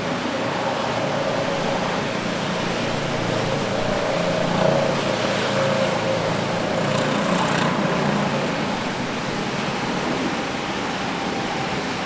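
Steady hiss of rain in a city street, with the hum of traffic engines running underneath. The hum swells a little midway through.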